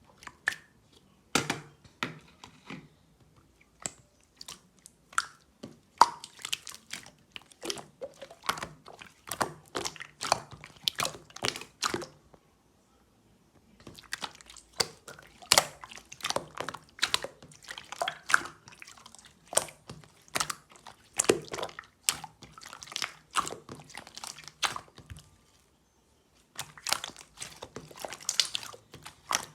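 Close-up crunching and crackling of something crisp, in dense runs of sharp cracks with two short pauses.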